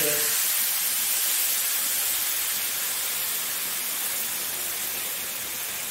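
Water poured from a bottle into a hot, oily frying pan of potatoes and brinjal, hissing and sizzling steadily as it hits the hot oil and turns to steam, slowly dying down.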